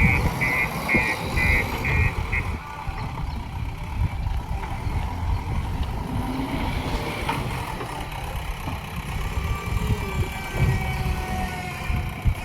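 JCB 3DX backhoe loader's diesel engine working under load, its rumble rising and falling. A reversing alarm beeps about twice a second and stops about two seconds in.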